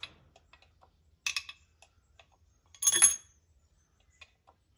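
Steel engine pushrods clinking against metal as they are dropped into a Mitsubishi Fuso 6D14 diesel's cylinder head: a light clink a little over a second in and a louder ringing clink about three seconds in, with a few soft ticks between.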